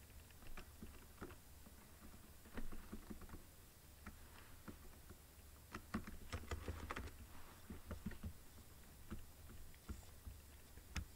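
Faint computer keyboard typing and clicks, irregular and bunched most densely in the middle, over a steady low hum.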